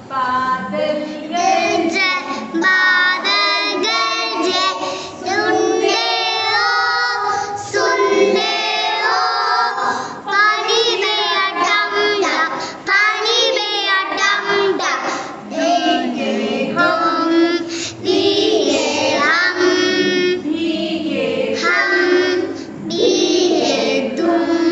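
Children singing a rhyme, high young voices carrying a sung melody with short pauses between lines.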